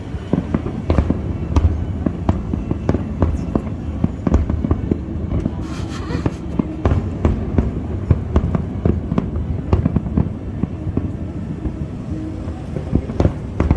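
Aerial fireworks going off in a rapid, irregular barrage of bangs over a continuous low rumble, with a brief hiss about six seconds in.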